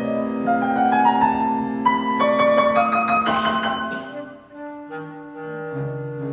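Chamber ensemble of flute, clarinet, violin, viola, cello and piano playing. The piano climbs in an accelerating run of rising notes over held wind and string tones and peaks in a loud chord about three seconds in. The chord dies away into soft sustained notes from the winds and strings, with the cello low underneath.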